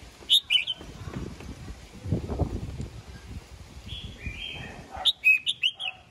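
Red-whiskered bulbul singing short, bright whistled phrases: a quick burst just after the start, a softer phrase about four seconds in, then a fast run of several notes near the end. A low rumble sounds between the phrases.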